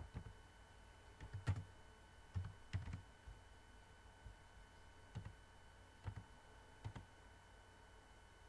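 Irregular clicks on a computer, about a dozen in all, bunched in the first three seconds and then spaced a second or so apart, over a faint steady electrical hum.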